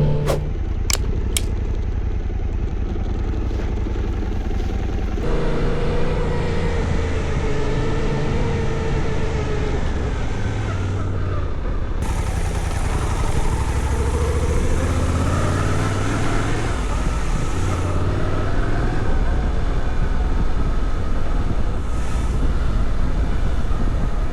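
Suzuki V-Strom 800DE's parallel-twin engine running while riding, its pitch rising and falling with the throttle, over a steady rush of wind and road noise. There are three short clicks near the start.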